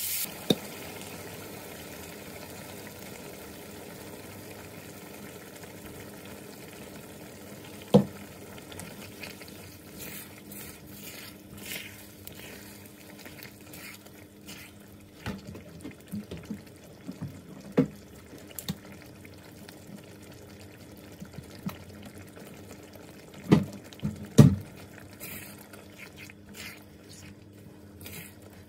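Spatula stirring tteokbokki and beef brisket through simmering sauce in a wok, with wet sloshing and scraping and a few sharp knocks of the spatula against the pan, the loudest two close together about three-quarters of the way through.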